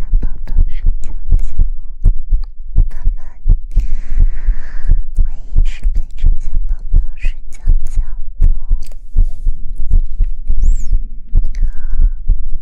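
Soft, rapid, irregular thumping and rubbing on a 3D (binaural) ASMR microphone, a mic-massage or patting sound, with a few short breathy hisses.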